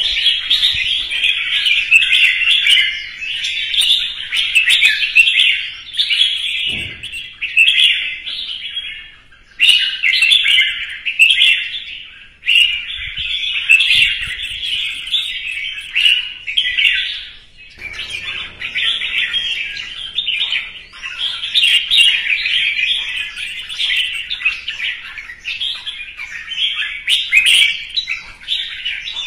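Red-whiskered bulbul singing its competition song: a long, nearly unbroken run of quick, chattering whistled phrases, with a few brief pauses.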